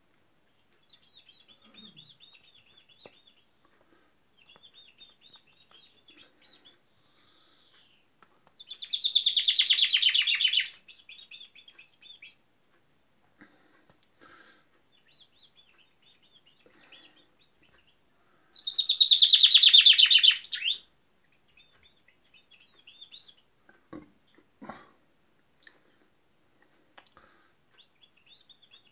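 Common chaffinch singing its full song twice, each song about two seconds long and about ten seconds apart, with quieter high chirps in between.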